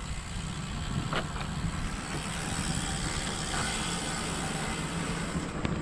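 Carbon road bike rolling along a paved path: a steady rumble of tyres and rushing air, with a couple of faint clicks.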